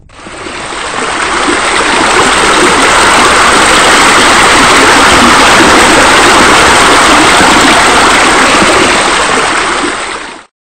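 Steady rushing of flowing water, fading in over the first two seconds and cutting off suddenly near the end.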